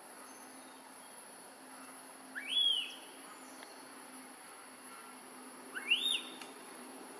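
Infant macaque crying twice, each a short high whistle-like call that rises sharply and then holds. Behind it runs a steady high insect drone.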